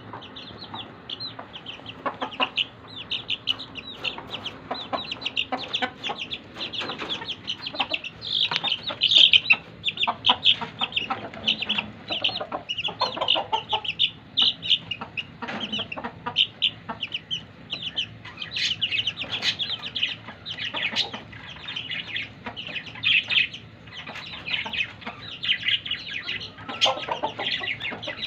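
Baby chicks peeping: a steady, dense chorus of short, high-pitched cheeps, many a second and overlapping, with a few lower calls mixed in.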